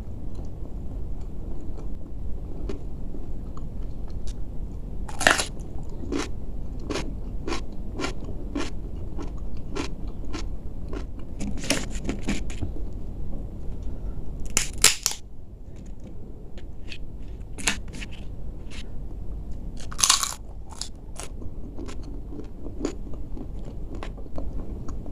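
A person chewing crisp food close to the microphone. The crunches come in a run of about one to two a second, then a few louder, spaced-out crunches, growing fainter near the end.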